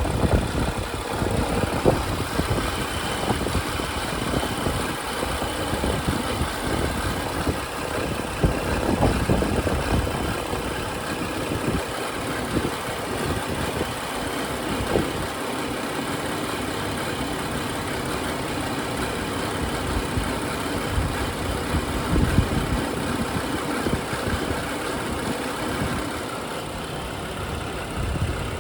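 BMW N55 turbocharged straight-six idling steadily, its direct fuel injectors ticking loudly. The owner judges the engine healthy, with no timing chain noise.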